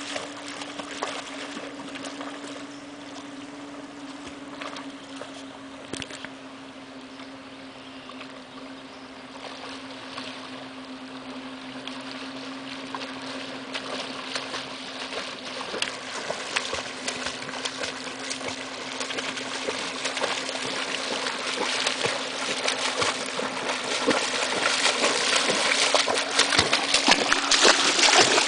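A German shepherd wading and trotting through shallow river water, her legs splashing, the splashing growing louder and closer toward the end. A steady low hum runs underneath.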